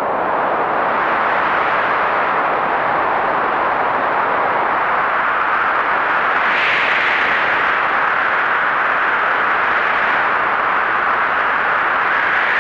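Heavy blizzard wind blowing as a steady, dense hiss, with a stronger gust swelling up about halfway through.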